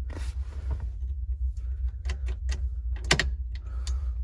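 A scattered series of sharp clicks and knocks, the loudest about three seconds in, over a steady low hum: hands working the ignition key and the battery-tender hookup of a car with no battery.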